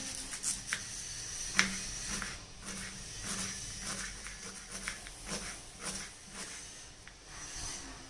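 Kitchen knife chopping onion on a wooden cutting board: irregular sharp taps of the blade striking the board, roughly one or two a second, with one louder knock about one and a half seconds in.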